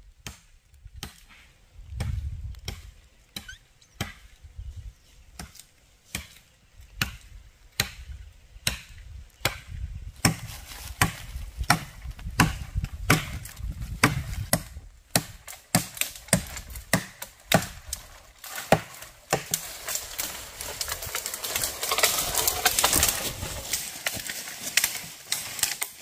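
Machete chopping wood, sharp strokes in a steady rhythm of about two a second. From about twenty seconds in the chopping gives way to a few seconds of rustling footsteps through dry leaf litter and brush.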